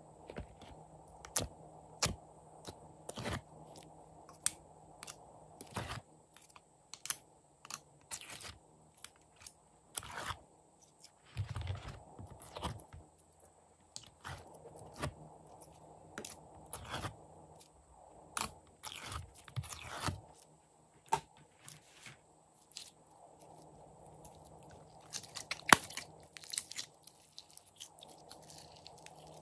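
Thick, glossy store-bought slime being scooped out of a plastic tray and squeezed and folded by hand, giving irregular sticky clicks and crackles, with one sharp, louder pop near the end.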